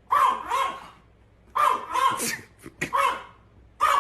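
A dog giving short, pitched yelps or barks in about four quick bursts.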